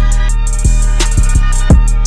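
Hip-hop style background music: a heavy bass line with a steady kick drum and hi-hat beat.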